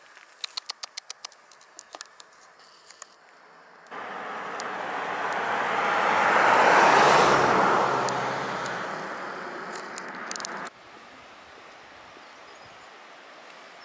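A car passing by: tyre and engine noise that swells to a peak and then fades over several seconds. Before it, a quick run of sharp crackles from steps on dry forest litter.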